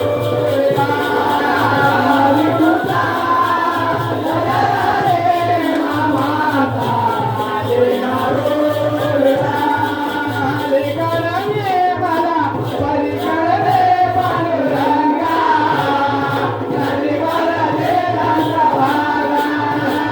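Konkani Shakti-Tura folk song: singers' voices, with a chorus joining in, over percussion keeping a steady beat.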